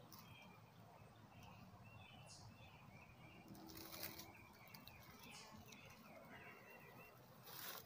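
Near silence: faint small-bird chirping throughout, with a soft click about four seconds in and another near the end.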